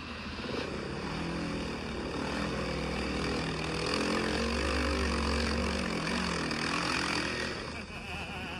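Adventure motorcycle engine revving as the bike ploughs through a flooded track crossing, with water splashing and spraying. The engine note rises and falls and is loudest around the middle.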